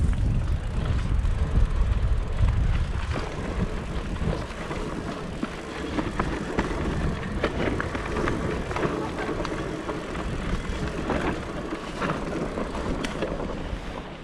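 Propain Ekano electric mountain bike ridden down a trail: tyre noise over the ground with many small clicks and rattles from the bike throughout, over a low rumble that is loudest in the first few seconds.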